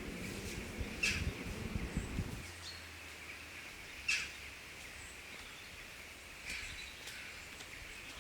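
Forest ambience with birds calling against a steady high background. There are a few sharp pops, about a second in, about four seconds in and again near six and a half seconds, and a low rumble that stops after about two and a half seconds.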